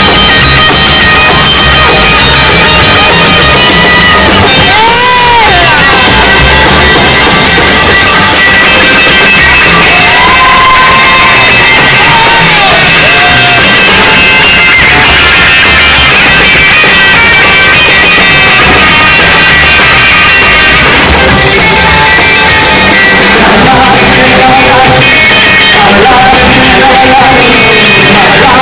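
Loud live rock band: an electric guitar leads with bending notes over drums and upright bass.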